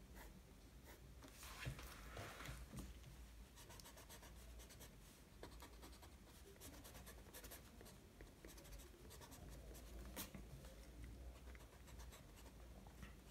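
Faint pencil strokes scratching on sketchbook paper: many short strokes, with a denser flurry about two seconds in.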